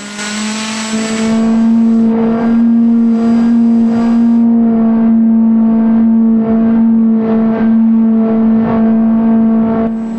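Electric motor and propeller of an RC paramotor running at steady throttle, a steady buzzing whine that holds its pitch. Wind rushes over the trike-mounted camera in gusts during the first few seconds.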